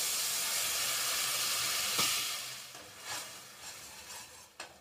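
Onion paste frying in hot butter with garlic in a kadai: a steady sizzle that dies away after about two seconds, then a sharp clink and a few light scrapes of a spoon stirring the pan.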